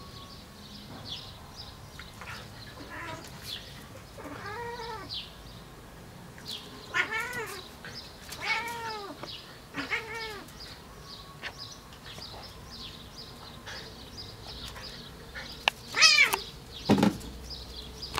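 Cat meowing repeatedly while wrestling with a terrier: a string of separate drawn-out calls that rise and fall in pitch, then a louder, higher cry near the end.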